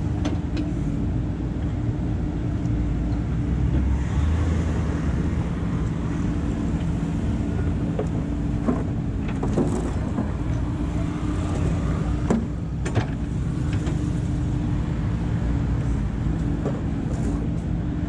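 JCB 3DX backhoe loader's four-cylinder diesel engine running steadily under hydraulic load while the backhoe digs and lifts soil. A few sharp knocks come in the middle.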